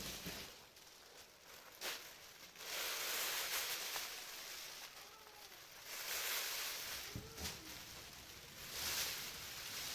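Thin foil emergency tent sheet crinkling and rustling as it is handled, in three long stretches of a second or two each.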